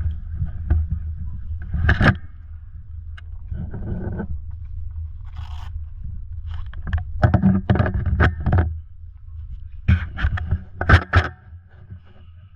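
Scraping and rustling right at the microphone, in several bursts, over a steady low rumble, with a few sharp clicks near the end.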